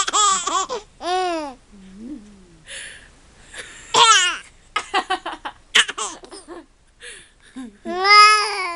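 Baby of about six months laughing in high-pitched bursts, with short coughs from another person in between that set the laughs off; one long laugh rises and falls near the end.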